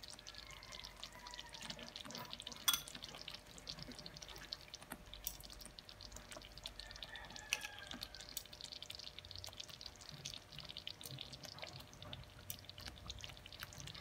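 Thick tomato spaghetti sauce simmering in a metal pan with faint, dense bubbling pops, as metal tongs stir through it and click sharply a couple of times.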